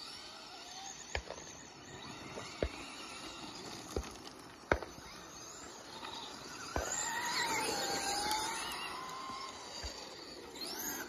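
Radio-controlled sprint cars racing on dirt, their motors whining and rising and falling in pitch as they speed up, slow and pass. There are a few sharp knocks in the first seven seconds.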